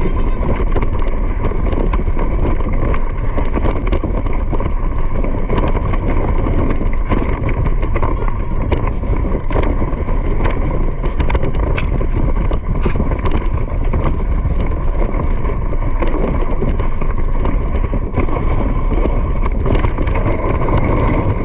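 Steady rumbling noise of fast movement, with wind buffeting the microphone.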